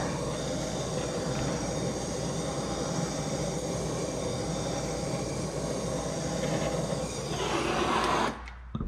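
Handheld gas blowtorch flame burning with a steady hiss, shut off about eight seconds in.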